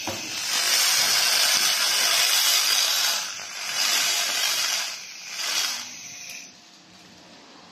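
Handheld fiber laser cleaning head ablating rust from a steel plate: a loud hiss in three spells, the first about three seconds long and two shorter ones after it, then a fainter hiss near the end.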